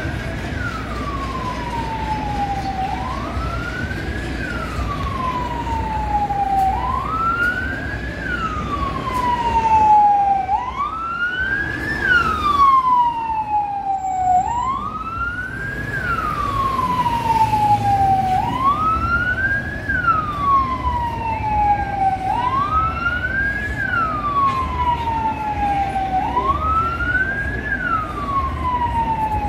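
SAMU ambulance siren sounding over low traffic rumble. Each cycle is a quick rise in pitch and then a slower fall, repeating about every four seconds.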